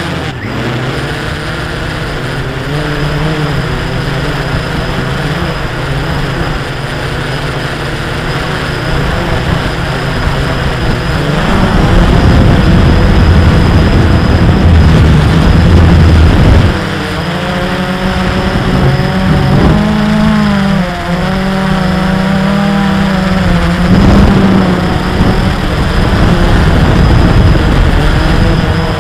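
A small camera drone's motors and propellers buzzing, with wind rumble on the onboard microphone. About two-thirds of the way in, the motor pitch wavers up and down as the drone manoeuvres.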